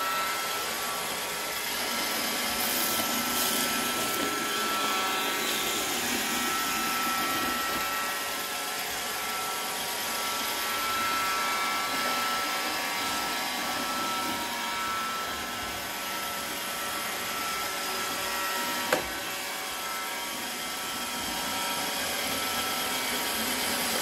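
Robot vacuum cleaner running across a hard floor: a steady whir of its suction fan and brush motors with a faint high hum, and a single sharp click about nineteen seconds in.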